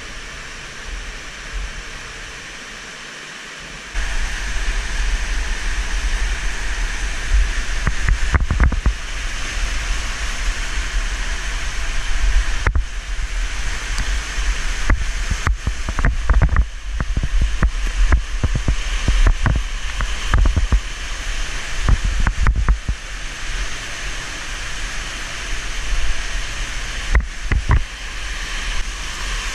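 Waterfall rushing steadily through a narrow rock gorge, louder and closer from about four seconds in, with a heavy low rumble. Scattered knocks and bumps of the body-worn camera against gear and rock are heard during the rappel beside the falls.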